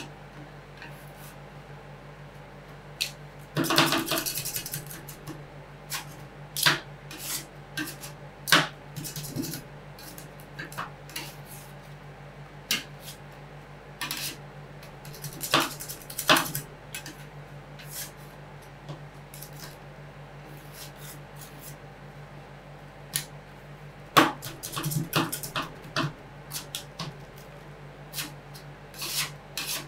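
Metal spatulas knocking and scraping on a rolled-ice-cream cold plate as ingredients are chopped and worked into the cream. The sound comes as scattered sharp taps, with busier stretches of scraping about four seconds in and again near twenty-five seconds, over a steady low hum.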